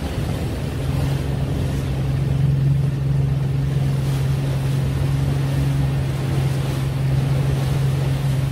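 Small boat's engine running steadily at cruising speed, a low even hum that comes in about a second in, over wind and water noise.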